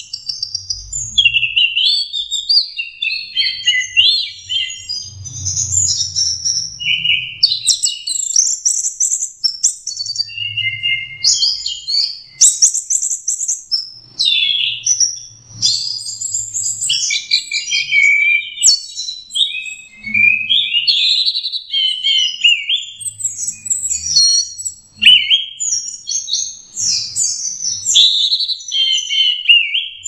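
Orange-headed thrush (anis merah, punglor) singing nonstop in the 'teler' style: a rambling stream of quick, varied whistled phrases and sweeps with hardly a pause, packed with fill-in notes.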